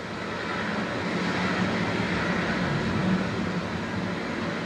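Steady rumbling roar of rushing floodwater, a sound effect. It swells over the first second or so, then holds.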